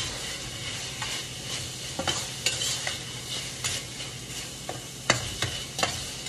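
Beef frying in a large pan with a steady sizzle while a utensil stirs it, knocking and scraping against the pan a few times. The loudest knock comes about five seconds in. The meat is nearly cooked.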